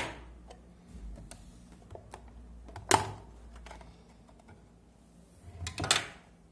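Hard plastic clicks and clacks as the drill sharpener's removable dust tray is slid out and put down and the machine's housing is tipped over. There is a sharp click at the start, a louder clack about three seconds in, and a quick cluster of knocks near the end, with small ticks between.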